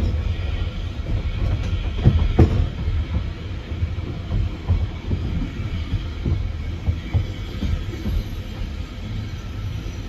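Narrow-gauge railway carriage rolling over track and pointwork: a steady low rumble of the wheels with irregular clicks and knocks from rail joints and points, the loudest a pair of knocks about two seconds in.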